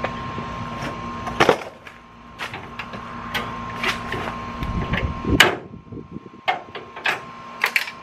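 Scattered sharp clicks and knocks as hands work at the front edge of a stuck-down Toyota FJ Cruiser hood and its grille, about ten in all, the loudest about five seconds in. A steady hum runs underneath.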